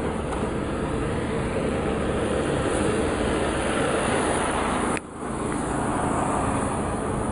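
A motor vehicle's engine running close by: a steady rumble with a hiss, which drops out briefly about five seconds in and then resumes.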